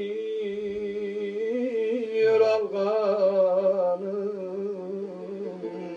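A man singing a Turkish folk song without words. He draws out long held notes with a wavering vibrato between lyric lines.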